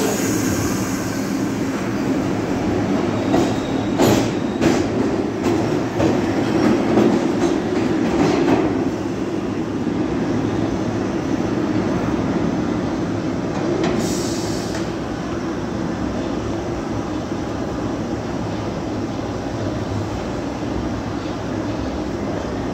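R62A subway train pulling out of an underground station: a steady rumble of the cars with wheels clicking over the rail joints, loudest a few seconds in, then easing off as the train runs away down the tunnel. A brief high hiss about fourteen seconds in.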